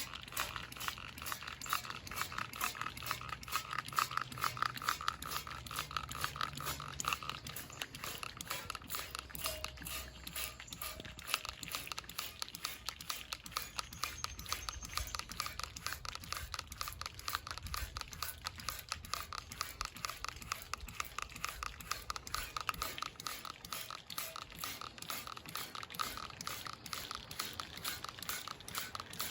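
Hand scrubbing or rubbing on old chrome, a steady run of quick back-and-forth scratchy strokes, several a second.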